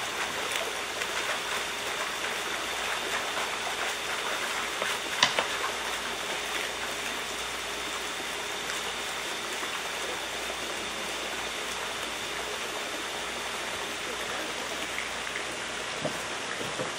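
Water jets pouring from a PVC pipe into a shrimp-culture tank: a steady splashing patter like rain, with people wading through the water. One sharp knock about five seconds in.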